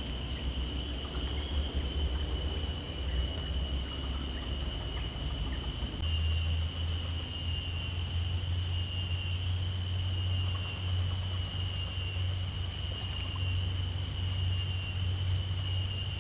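Steady high-pitched singing of insects, several overlapping tones that run on without a break, with a low steady hum beneath that grows stronger about six seconds in.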